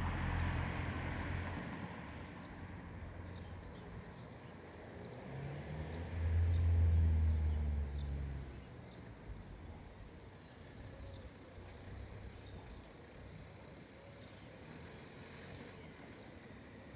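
Outdoor ambience: a vehicle's low engine hum fades away at the start, then another vehicle passes, loudest about six to eight seconds in. Short, high bird chirps repeat irregularly throughout.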